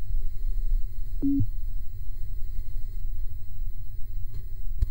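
A steady low rumble of noise, with one short, low electronic beep about a second in.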